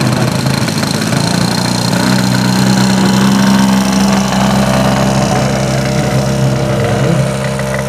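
Engine and propeller of a large-scale RC Zlin Z 242 L tow plane running at a steady pitch, stepping up a little about two seconds in as it goes to takeoff power to pull a scale glider on the tow line.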